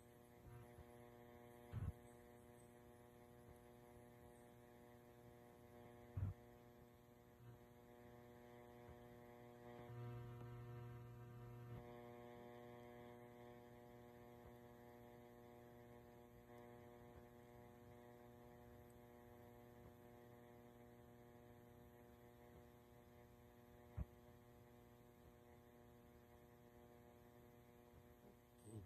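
Near silence: a faint steady hum, broken by three short, sharp clicks.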